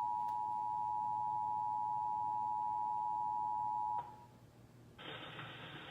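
Emergency Alert System attention signal: the steady two-tone alert tone, held and then cutting off with a click about four seconds in. About a second later a low hiss comes in.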